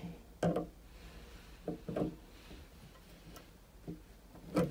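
Pliers turning the splined brass spindle of a thermostatic mixer shower's temperature cartridge forward to raise the water temperature: about six light, irregular metallic ticks and clicks, the loudest near the end.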